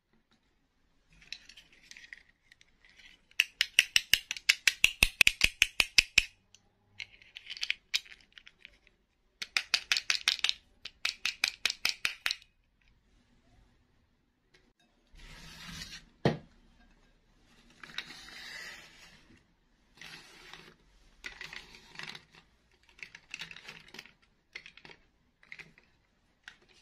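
Small plastic doll figures being handled and set down on a hard surface: runs of quick plastic clicks and rattles, soft rustling, and one sharp knock a little past halfway.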